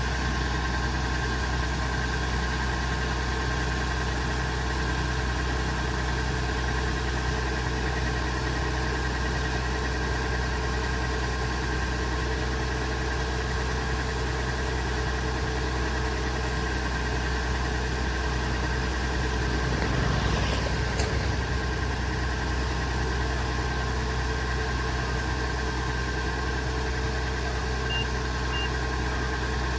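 Kubota DC70 Pro combine harvester's diesel engine running steadily with a constant mechanical hum, briefly swelling louder about twenty seconds in.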